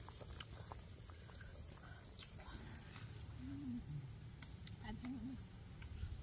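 Insects buzzing steadily on one high pitch, with a fainter higher tone above it.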